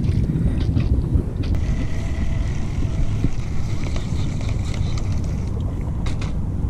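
Wind blowing across the microphone, with a few light clicks from a baitcasting reel being handled.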